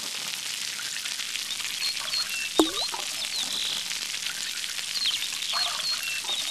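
Nature-sound track of steady running water with short high bird chirps and a sharp falling plop about two and a half seconds in, the pattern repeating as a loop.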